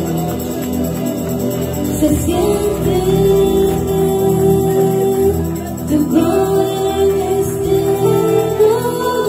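Live church worship band: voices singing a Spanish-language praise song over electric guitar and bass guitar, with the sung lines coming in about two seconds in.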